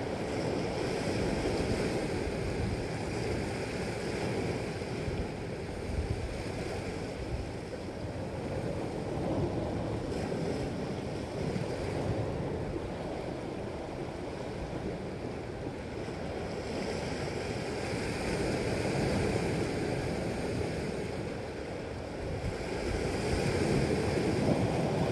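Sea surf washing against a rocky shore, its level swelling and easing slowly, with wind blowing on the microphone.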